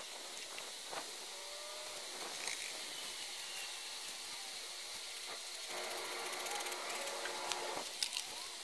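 A faint, steady buzzing drone with wavering tones, a little louder for a couple of seconds in the second half, and a few light knocks.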